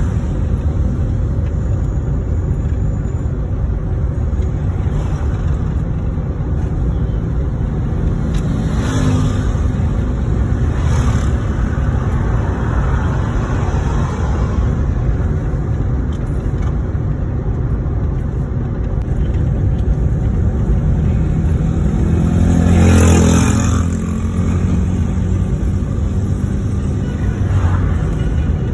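Steady low rumble of a car's engine and tyres on the road, heard from inside the cabin while driving. Near the end a louder rush swells up for a second or two.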